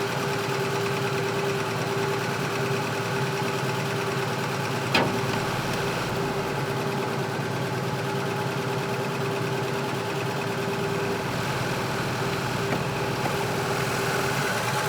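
Volvo 164's worn-out B30 straight-six engine idling steadily, with one sharp click about five seconds in.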